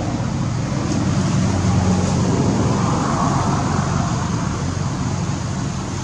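Steady low background rumble that swells about halfway through, then eases off.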